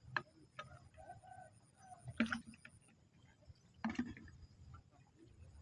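Domestic chickens clucking: a few short calls, faint.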